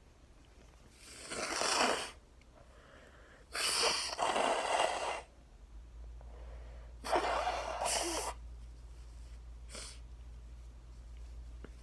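A woman sneezing and blowing her nose in a hay-fever fit set off by freshly cut grass: three loud, noisy bursts of a second or more, the second and third each in two parts, then a short one near the end.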